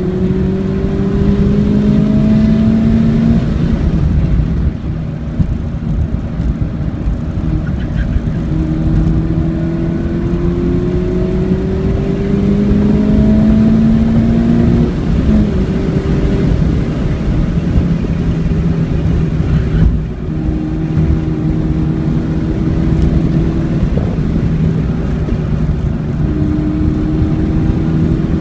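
Car engine heard from inside the cabin while lapping a race track under throttle at high revs. Its pitch climbs slowly over a few seconds and falls back several times, holding steady in between, over a heavy low rumble of road and tyre noise.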